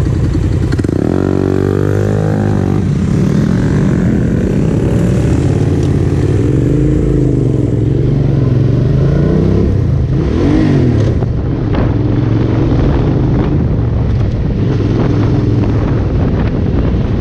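Motorcycle engine running under way. The pitch rises steeply as it revs up and accelerates about a second in, then swings up and down through the gears, with another quick rev around ten seconds in.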